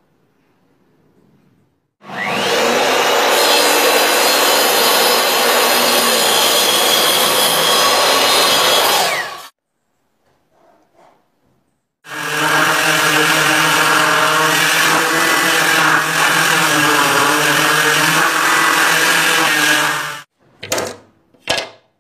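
Power saw cutting timber: two long, steady runs of about seven seconds each that start and stop abruptly, then two short bursts near the end.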